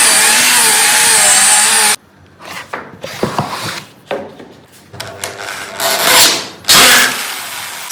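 A woodworking power tool's motor running loud, its pitch wavering under load, then cutting off abruptly about two seconds in. It is followed by irregular rubbing, scraping and knocking of wood being worked and handled.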